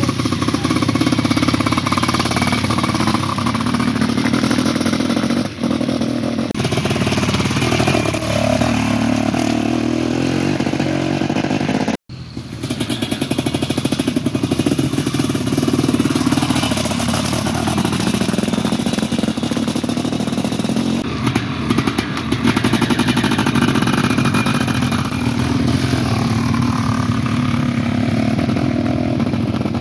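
Sidecar-cross outfit engines running loudly and revving, the pitch rising and falling again and again. The sound cuts out for a moment about twelve seconds in.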